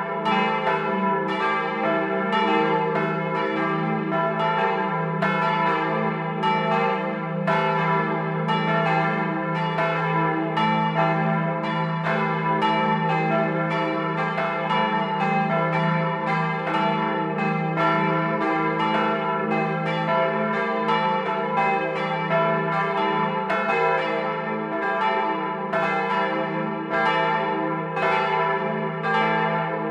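Church bells cast by the Otto foundry of Hemelingen in 1951, swung electrically in their tower and heard from inside the belfry. Their clappers strike in a steady overlapping sequence, about one to two strokes a second, over a continuous low hum of the ringing bells.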